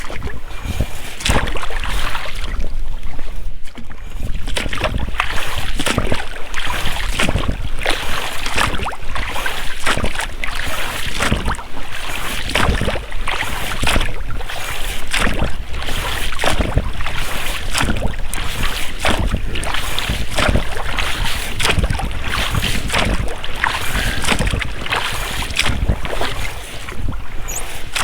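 Oars of an inflatable rowboat dipping and splashing stroke after stroke, with the rubber rowlocks working on each pull, over a steady low rumble.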